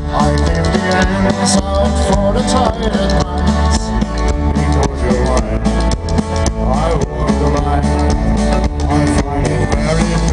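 Live country band playing: acoustic and electric guitars over a drum kit.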